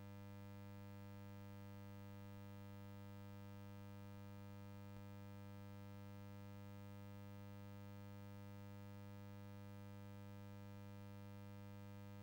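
Near silence: a faint, steady electrical hum with a stack of even overtones, strongest low down, unchanging throughout.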